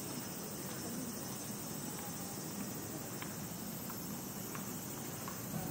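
Steady background ambience of a public place: an even hiss and low hum, with a few faint clicks.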